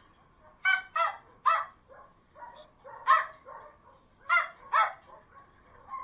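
Dog barking at the kennel fence: about six loud, sharp barks in quick clusters, with fainter barks in between.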